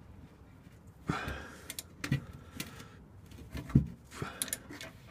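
Breaker bar, E14 Torx socket and extensions clanking and knocking, metal on metal, as they are wrenched against the tight rear differential bolt of a BMW E46 M3 to break it loose. There are a handful of separate sharp knocks, the loudest about two-thirds of the way through.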